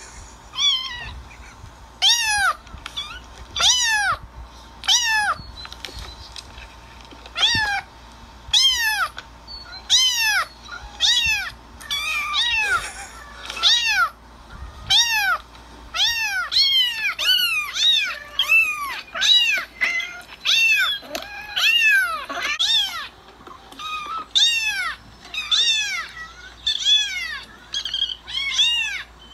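A cat meowing over and over: short meows that rise and fall in pitch, about one a second at first, then coming faster and overlapping from about twelve seconds in.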